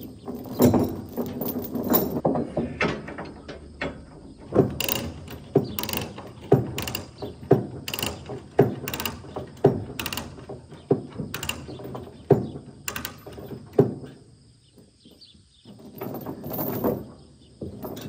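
Tie-down chain rattling, then a ratchet chain binder being cranked tight, giving a steady series of sharp clicks roughly once a second that stop about three-quarters of the way through.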